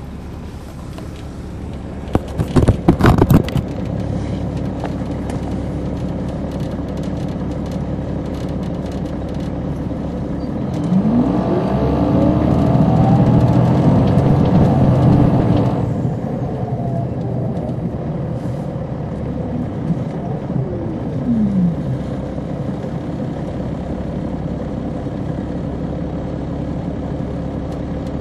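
Caterpillar C13 inline-six diesel engine of a 2007 MCI D4500CL coach, heard from on board, running steadily, with a loud noisy burst about two seconds in. About eleven seconds in the engine revs up with rising pitch, cutting back suddenly around sixteen seconds, and a falling whine follows near twenty-one seconds.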